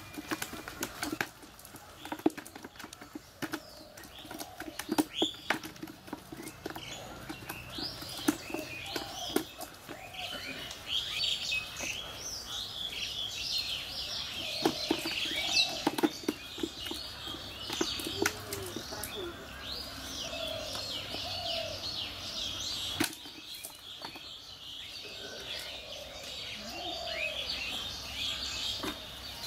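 Caught fish flapping against the ground and cast net, and the net rustling as the fish are picked out by hand, with sharp slaps and clicks loudest in the first half. Small birds chirp throughout, busiest from about a third of the way in.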